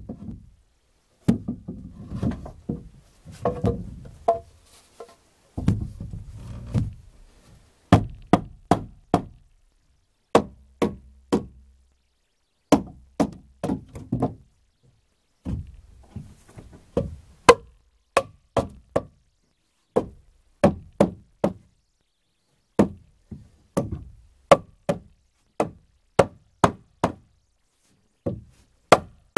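Wooden boards clunking as they are handled and set down, then sharp hammer blows on wood in quick runs of three to five strikes, over and over.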